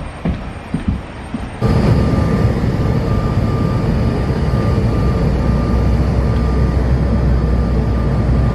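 Jet airliner heard from inside the cabin: engines and airflow make a loud, steady rumble with a thin, steady whine. It starts abruptly about a second and a half in, after a few light knocks.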